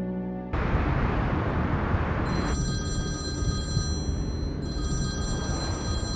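Telephone ringing: steady high electronic ring tones come in about two seconds in and keep going over a loud, constant rushing background noise.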